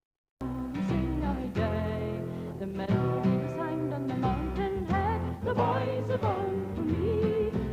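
Music: a song with a wavering melody over steady accompaniment, starting abruptly about half a second in.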